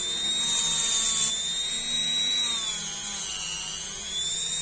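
Handheld electric rotary tool running at high speed with a steady high whine, its small wheel working the tip of a small screwdriver. The pitch dips a little about three seconds in, then recovers.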